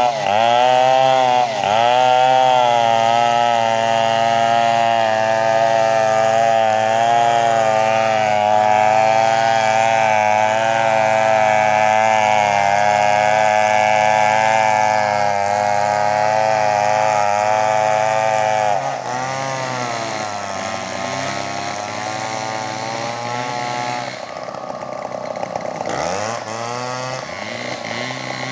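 Two-stroke chainsaw run hard at high revs, cutting a coconut palm trunk, with two quick throttle dips near the start. About two-thirds of the way through the revs drop suddenly and it runs lower and quieter with a wavering pitch, then dips and picks up again near the end.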